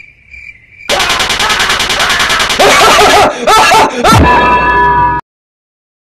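Very loud, distorted rapid-fire rattle like machine-gun fire mixed with music, an edited meme sound effect. It starts about a second in and cuts off suddenly about five seconds in.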